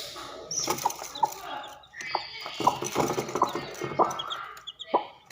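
Chicken clucking in a string of short, sharp calls.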